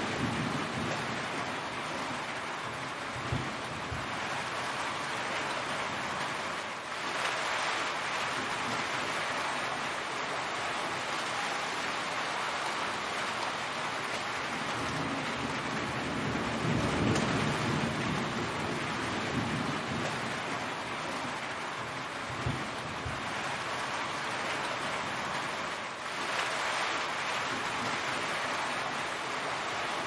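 Heavy rain falling steadily, with a few brief low thumps or rumbles, the strongest about halfway through.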